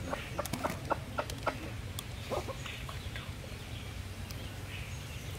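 A chicken clucking: a quick run of short clucks in the first half, then only a few.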